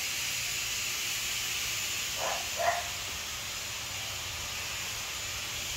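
A dog barks twice in quick succession, about two seconds in, over a steady background hiss.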